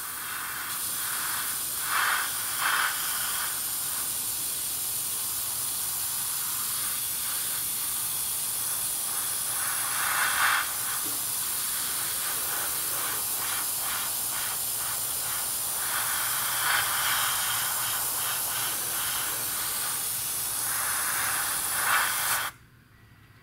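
PS290 airbrush hissing steadily at high air pressure while spraying acrylic primer, with a few brief surges along the way; the air cuts off suddenly near the end.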